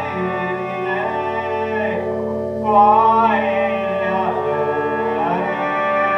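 Instrumental music: a sustained lead melody that slides smoothly between pitches, with a rising glide near the middle, over a steady drone.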